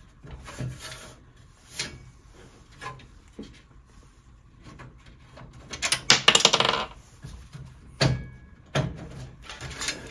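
Metal motherboard tray of a PC case being handled and worked loose: scattered clicks and knocks, with a loud scraping slide about six seconds in.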